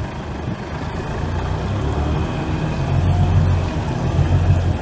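Toyota Hilux's 5L four-cylinder diesel engine running under load as the truck wades through deep water, with water rushing and churning against the doors. The low engine note grows stronger about two seconds in.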